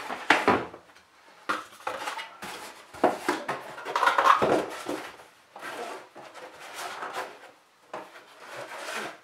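Cardboard packaging rubbing and rustling against a hard plastic carrying case as the case is slid out of its sleeve, with a string of irregular short knocks as the case and cardboard are handled on a wooden table.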